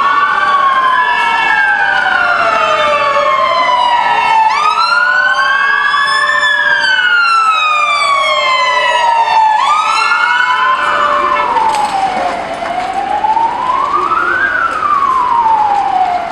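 Several emergency vehicle sirens wailing at once, each rising and falling slowly in pitch over a few seconds. Two more start up about four and about ten seconds in with a quick upward sweep, and after about eleven seconds a single siren wails on alone.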